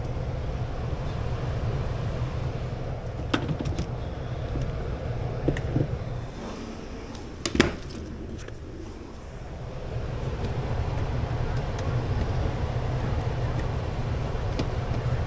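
A steady low mechanical hum, with a few sharp clicks and knocks from handling, the loudest about seven and a half seconds in; the hum drops away briefly a little after that, then comes back.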